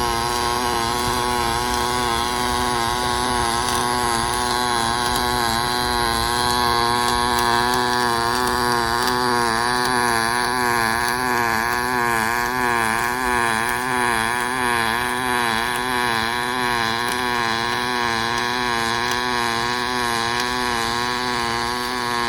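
Robot welding arc buzzing steadily, its pitch wavering up and down in a regular cycle, as the torch runs a circular weave around a flange weld.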